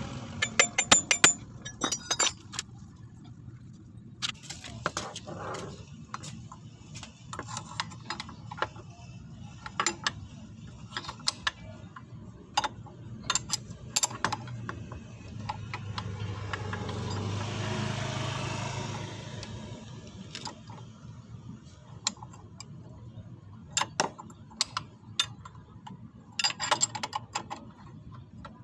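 Steel hand tools (wrenches, a long bar and a clutch holding tool) clinking and clanking against each other and against a Honda Vario 125 scooter's CVT clutch nut and housing, in many short sharp knocks. A rushing noise swells and fades about 16 to 20 seconds in.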